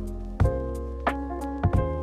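Background music: sustained low chords with sharp beat hits about every half second.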